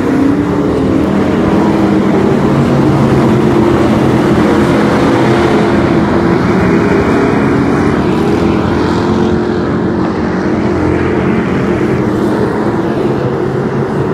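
Engines of a field of hobby stock race cars running together as they race around a dirt oval, a loud, steady engine drone.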